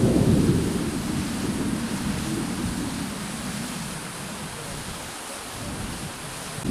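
Spring water running and splashing down a muddy slope in a small cascade. A low, uneven rumble lies over it, loudest at the start and easing off by the middle.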